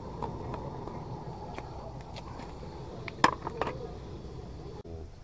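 A metal cooking tin with a crab boiling in it being handled with tongs: light clicks, then a sharp metallic clink and a few rattles about three seconds in as it is set down, over a steady low rumble.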